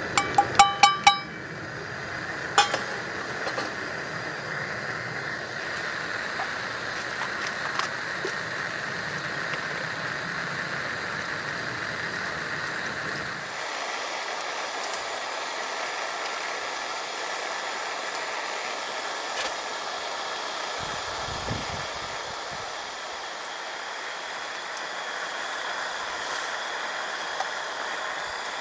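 Metal clinking: about five quick clinks with a ringing tone in the first second and one more about two and a half seconds in, over a steady outdoor hiss whose low rumble drops away about halfway through.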